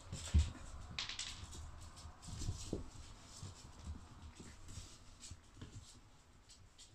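4½-week-old puppies moving about on a wooden floor: scattered light taps and scuffs of small paws, with a low thump just under half a second in.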